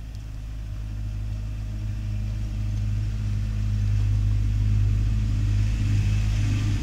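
A low, steady engine-like rumble that grows gradually louder over the first few seconds and then holds.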